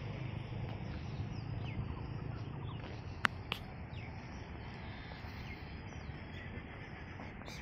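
Birds calling with short chirps over a steady low hum of background noise. Two sharp clicks come a quarter second apart a little over three seconds in.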